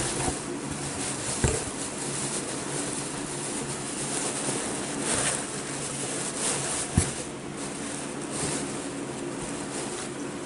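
Items being rummaged through inside a cardboard box: rustling and swishing, with a few sharp knocks, over a steady low hum.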